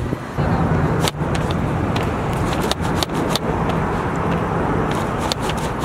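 Steady street traffic noise, with a car engine hum and a few sharp clicks.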